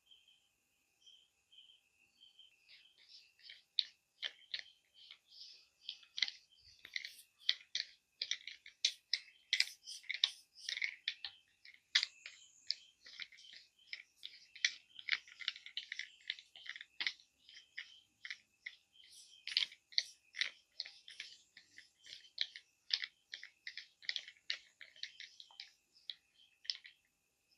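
Close-up short, crunchy scratching strokes on hair and skin, several a second and irregular, starting about two and a half seconds in. A faint steady high whine runs underneath.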